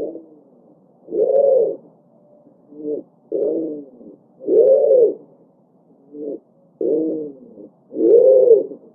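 Pigeons cooing: a series of about seven low coos, each rising and falling in pitch and lasting up to a second, with short pauses between them.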